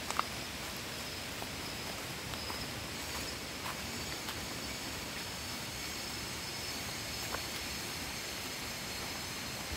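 Rainforest ambience: a steady hiss with a thin, high insect drone over it, and a few light ticks and crunches of footsteps on dry leaf litter.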